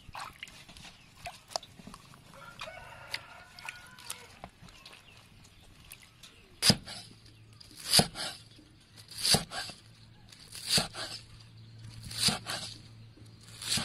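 Water sloshing and splashing faintly as green onions are rinsed by hand in a metal basin. Then a cleaver chops green onions on a wooden cutting board: six sharp, loud chops, about one every second and a half.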